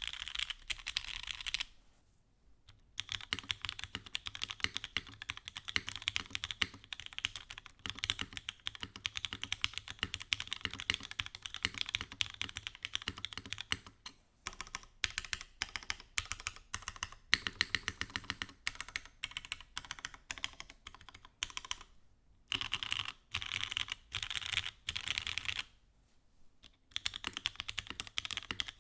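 Fast typing on a Mode Sonnet custom mechanical keyboard with Ultraglide switches, an aluminium plate, a copper bottom case and a top mount: a quick, even stream of clacking keystrokes. There are short pauses about two seconds in, and twice near the end.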